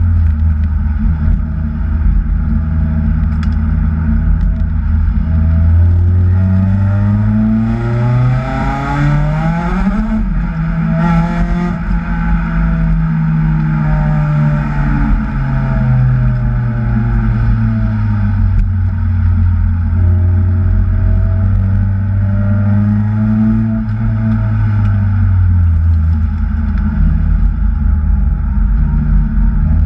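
Kraftwerks-supercharged Acura TSX engine under hard driving, revving up and down continuously. The pitch climbs to a high peak about ten seconds in, drops away, then rises and falls again more gently later on.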